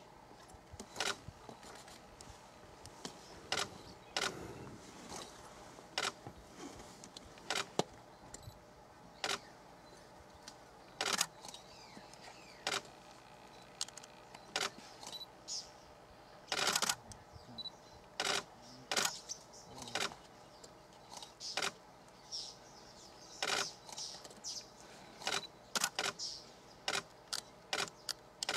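Camera shutters firing, single frames and short bursts of sharp clicks, at irregular intervals of roughly a second.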